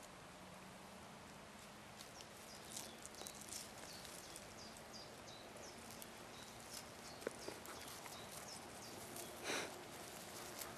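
Faint rustling and crackling of dry grass and twigs as a cat rolls on the ground and rubs against a shoe, with many short high ticks and a louder rustle about nine and a half seconds in, over a faint steady hum.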